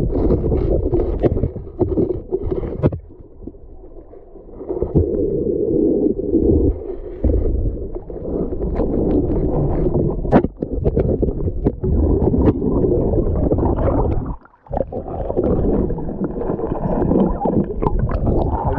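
Muffled rumbling and gurgling of water heard underwater as a swimmer moves through a river, with scattered small knocks. It drops off for a second or so early on and cuts out briefly about three quarters of the way through.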